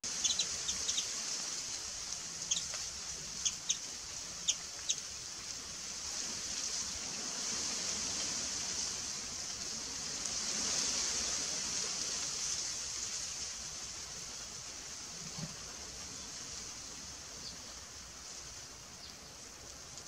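A bird gives a scatter of short, high chirps during the first five seconds, over a steady high hiss.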